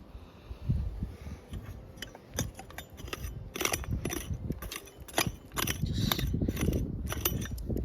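Digging into sand and stones with a pick: repeated scraping and sharp clinks of metal on rock, coming thicker in the second half.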